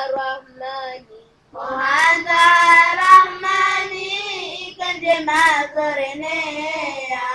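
A high voice singing a Ramadan song in long, drawn-out phrases, with a short pause about a second in.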